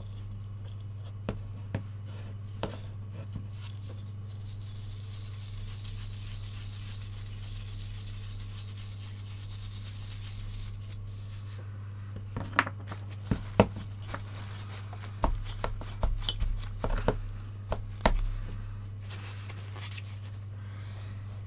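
Plastic toothbrush scrubbing a VCR power-supply circuit board with isopropyl alcohol, a soft high bristly hiss. In the second half come a run of sharp clicks and taps as the board and brush are handled and set down, over a steady low hum.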